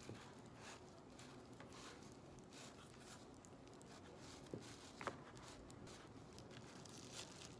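Faint rustling and scratching of hands working shiny plastic-foil strips through the cotton warp strings of a cardboard lap loom, with a couple of small ticks about halfway through.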